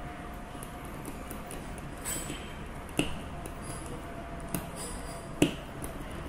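A few light clicks and taps from hands fitting wires and a plastic plug-in terminal block into a LoRa terminal, with faint cable-handling noise. The sharpest click comes about five and a half seconds in.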